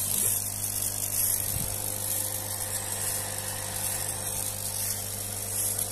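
DIY CO2 laser engraver running while it engraves a photo into plywood: a steady electric hum with a high hiss from the air assist.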